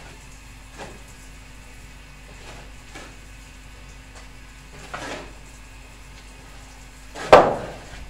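Metal shovel scraping and scooping cement mix on a floor: a few separate strokes a couple of seconds apart, the last, about seven seconds in, much the loudest.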